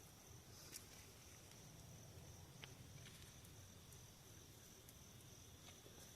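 Faint, steady chirring of crickets, with a few soft clicks.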